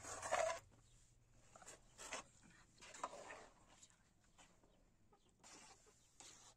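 Chicken clucking in a few short, separate calls, the loudest right at the start.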